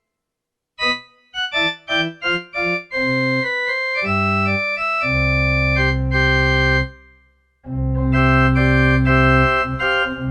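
Casio CTK-4200 keyboard played on an organ tone. A quick run of short notes comes first, then long held chords over a deep bass, with a short break in the middle.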